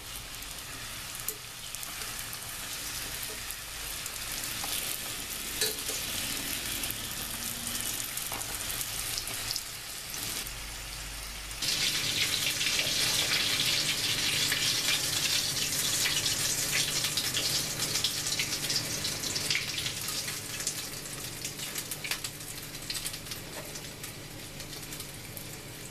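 Cheese-filled dough pastries shallow-frying in hot vegetable oil, a steady sizzle and crackle with a few clicks of metal tongs. About halfway through, the sizzling turns abruptly louder and a low steady hum joins it.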